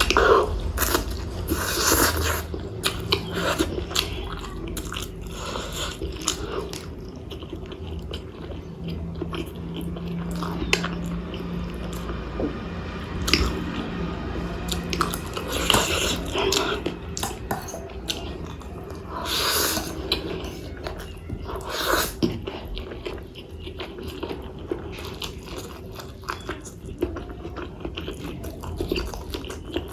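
Close-miked mukbang eating: a person chewing and biting food, with many small wet mouth clicks and a few louder bursts.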